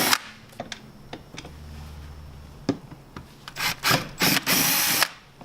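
Power drill with a 5/16 inch bit drilling through a snowmobile's plastic bottom pan in several short bursts, with clicks and rattles in between. The longest burst comes near the end.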